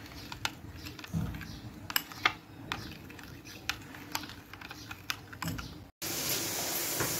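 Metal spoon stirring a thick wet spice paste in a white bowl, with irregular clinks and scrapes against the bowl. About six seconds in, it cuts to a steady sizzle of sliced onions frying in oil in an aluminium kadai.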